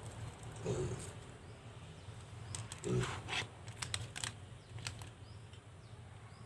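Small clicks and taps of screws and a small screwdriver being worked into a laptop hard-disk caddy, over a steady low hum.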